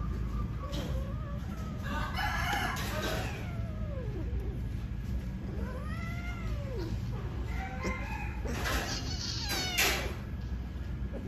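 A mating pair of cats, a queen in heat under a tom, yowling: drawn-out calls that rise and then fall in pitch, repeated several times.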